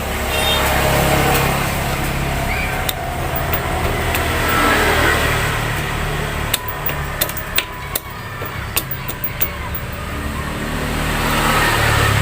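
Motor vehicles passing with a low engine drone that swells and fades three times, and a run of sharp clicks and taps in the middle.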